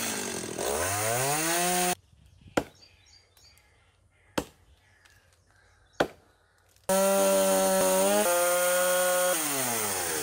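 Petrol chainsaw revving up. It cuts off suddenly, then three sharp knocks come about a second and a half apart. The chainsaw starts again near full throttle, steps down in pitch once, and winds down near the end.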